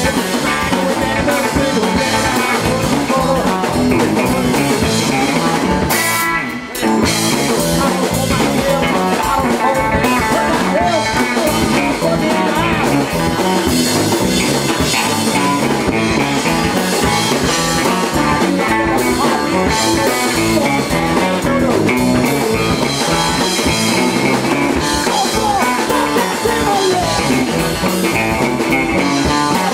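Punk rock band playing live: electric guitar and drum kit, with a short break about six and a half seconds in.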